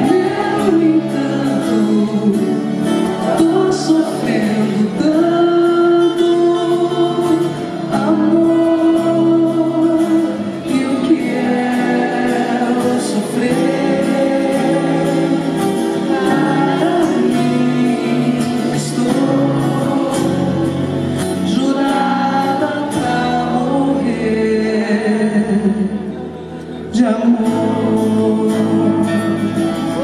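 A woman singing live while accompanying herself on an acoustic guitar; the music drops away briefly a few seconds before the end.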